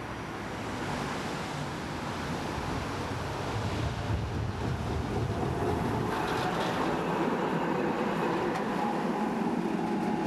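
Ganz articulated tram running past on its riverside track: a steady rumble that grows louder about halfway through, with a faint steady whine for a few seconds.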